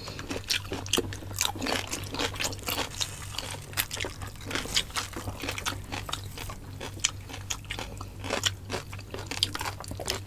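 Close-miked eating of roast suckling pig: irregular crunching, smacking and chewing, with the meat pulled apart by hand, over a low steady hum.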